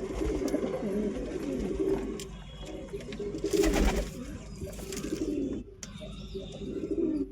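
Several domestic pigeons cooing at once, their low rolling coos overlapping without a break. A short noisy rustle about halfway through is the loudest moment.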